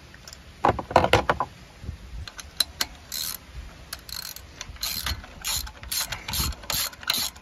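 Hand ratchet on a spark plug socket running a new spark plug into the cylinder head. A few louder knocks of the tool come about a second in. From about three seconds in the pawl clicks in short bursts, roughly twice a second, with each back-swing of the handle.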